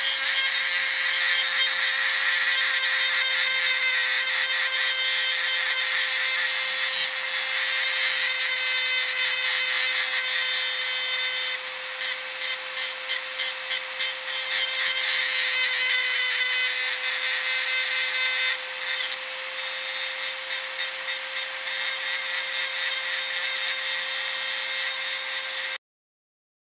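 Dremel rotary tool running at high speed with a steady whine, its grinding stone rubbing against a silverware spoon to smooth the metal. The grinding comes and goes in quick strokes around the middle as the stone touches and lifts off the spoon, and the sound cuts off suddenly near the end.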